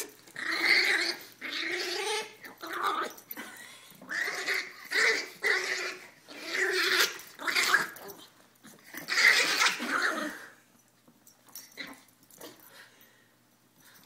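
Teacup Chihuahuas growling in a string of short, loud bursts as they wrestle. It turns much quieter about ten and a half seconds in.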